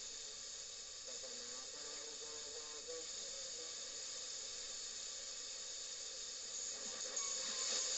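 FM radio receiver giving out steady static hiss, with a faint song fading under it in the first few seconds; the hiss grows louder near the end.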